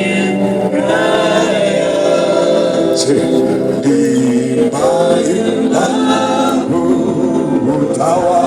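A congregation singing a worship song together, many voices at once.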